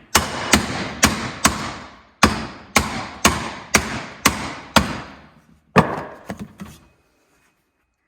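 A length of 2-inch ABS plastic pipe knocked repeatedly down the fork tube, driving the washer and oil seal into a Harley-Davidson Dyna's fork slider. About eleven sharp, ringing knocks come at roughly two a second with two short pauses, then a few quicker, lighter taps, and the knocking stops about seven seconds in.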